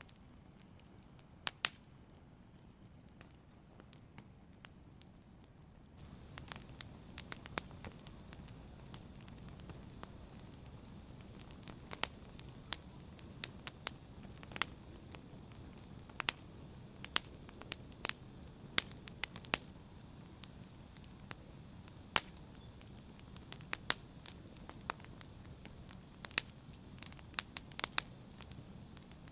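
Logs burning in a fireplace: sharp, irregular crackles and pops over a soft steady hiss of the fire, the hiss growing a little louder about six seconds in.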